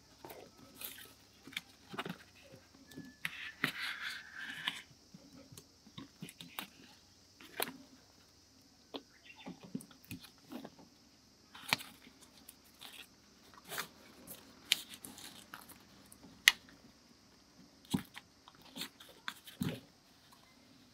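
Scattered small clicks, taps and rustles of hands working on a classic Mini's handbrake lever and its leather-wrapped grip, with a brief scraping rustle about four seconds in.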